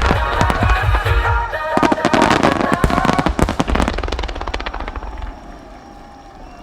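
Starmine fireworks going off in a rapid barrage of sharp bangs and crackles over loud show music with a steady beat. The bursts thicken about two seconds in, then thin out as the music fades toward the end.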